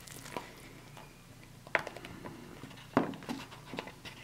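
A few soft knocks and wet plops as finely mashed coleslaw is tipped and shaken out of a takeaway tub onto a plate. The loudest knock comes about three seconds in.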